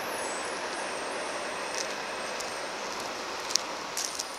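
Rolling noise of a train moving away along the track, a steady hiss that slowly fades, with a few sharp clicks about three and a half and four seconds in.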